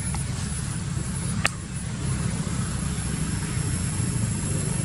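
Steady low rumble, like a distant engine or traffic, with a single sharp click about a second and a half in.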